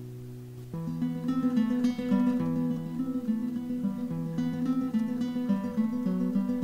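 Guitar music: a held chord fades out, then about three-quarters of a second in a busy run of plucked notes starts over a repeating bass line.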